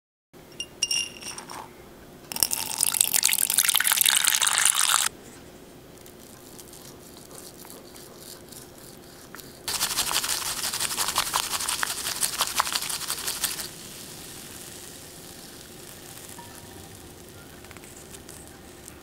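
A bamboo matcha whisk (chasen) beaten rapidly through matcha in a glass bowl, a fast scratchy frothing sound in two spells of a few seconds each, the first about two seconds in and the second near the middle. A couple of light glassy clinks come just before the first spell.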